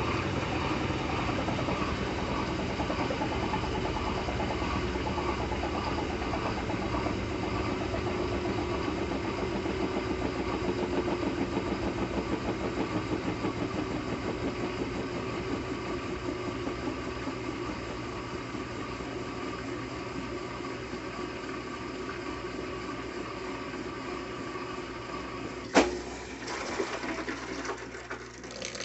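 Brastemp Intelligent 7 kg washing machine running with a steady motor hum and fast, even drum pulsing that slowly gets quieter, like a spin winding down. About 26 seconds in comes one sharp loud click, then a few lighter clicks and rattles.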